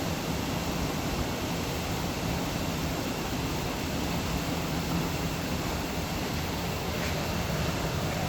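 Steady rushing of flowing water, an even unbroken roar with a strong low end, with one faint tick about seven seconds in.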